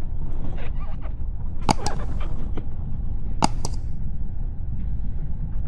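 Wind buffeting the microphone of a camera on a moving Toyota Troopcarrier, a steady low rumble, with two pairs of sharp clicks: one just before two seconds in, the other a little past halfway.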